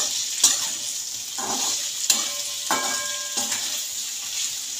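Chopped okra, tomato and garlic sizzling in hot oil in a kadai while being stir-fried, a steady high hiss. A spatula scrapes and clinks against the pan about once a second.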